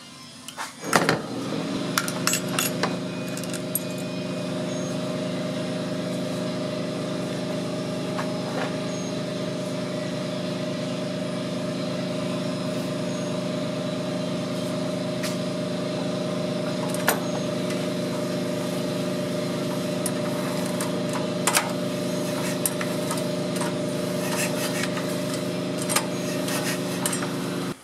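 An engine running at a steady speed, an even unchanging drone that starts about a second in, with a few sharp clicks over it.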